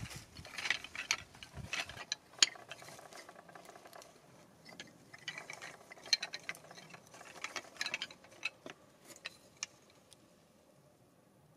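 Wooden sticks and carved wooden tools clicking and knocking against one another as they are picked through by hand, in scattered bursts that thin out near the end.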